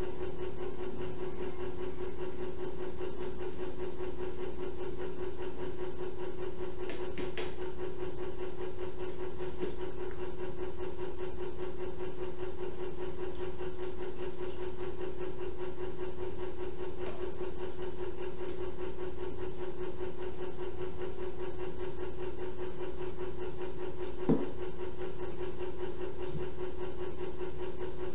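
Steady room hum with an even hiss on a live cam's microphone. A few faint clicks are heard, and one short knock comes about 24 seconds in.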